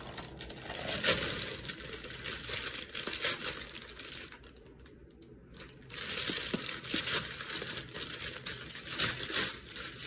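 Plastic poly mailer bag crinkling and tearing as it is ripped open by hand and a cardboard box is pulled out of it, with a brief pause about halfway through.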